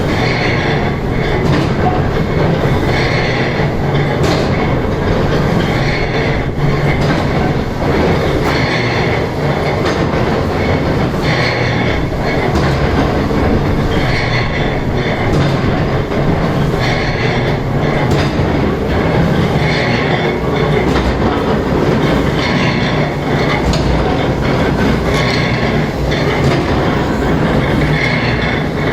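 Die-cutting power press running, a loud continuous mechanical clatter with a stroke that comes round about every two and a half to three seconds.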